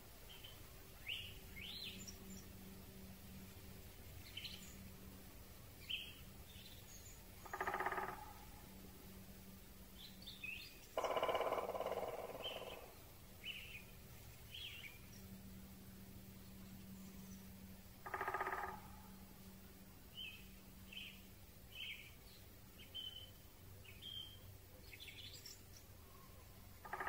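Forest birds over a faint steady hiss: small birds give many short, high chirps. Three louder, lower calls or bursts are spread through the stretch, and the middle one is the longest.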